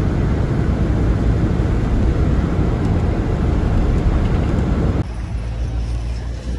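Cabin noise inside a moving coach bus: a steady rumble of engine and road. About five seconds in it cuts abruptly to a quieter rumble outdoors.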